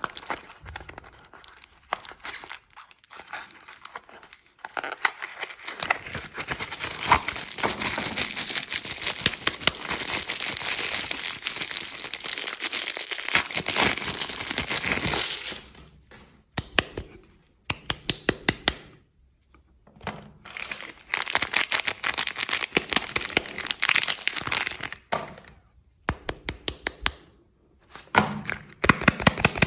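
Soap packaging being unwrapped by hand: crinkling and tearing of the wrapping, one long stretch of dense crinkling followed by shorter bursts broken by sharp clicks and brief pauses.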